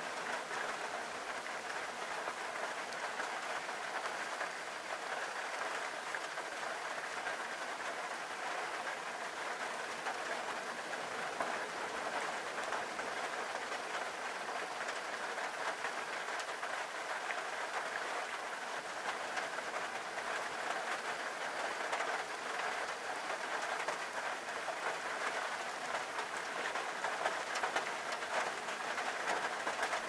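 Heavy storm surf from a typhoon breaking on rocks and churning white water, a steady rush of noise with no single crash standing out.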